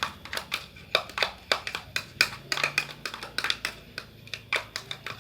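Homemade slime being stirred and worked to its final texture, giving rapid, irregular sticky clicks and pops, several a second.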